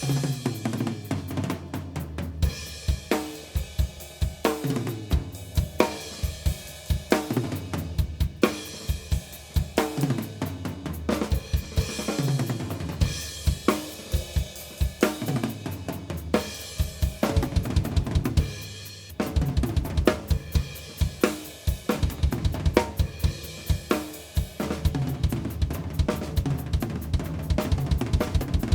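A mic'd 1990s Mapex Mars Pro drum kit with mahogany/maple shells being played: snare, bass drum, toms, hi-hat and cymbals in a steady groove with fills. The playing drops out briefly about two-thirds of the way through, then picks up again.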